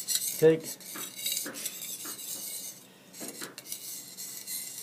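Steel knife blade scraping in short, irregular strokes across an oiled sharpening stone, spreading the oil before sharpening, with one louder clink about half a second in.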